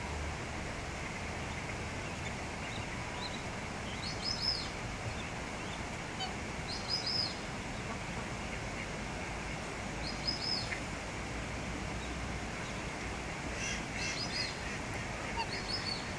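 Black swan cygnets peeping: short clusters of quick, high chirps every few seconds over a steady background hiss.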